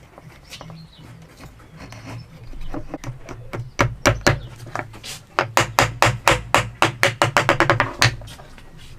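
A mallet or hammer striking wood in a run of sharp knocks. They begin a few seconds in, quicken to about five strikes a second, and stop shortly before the end.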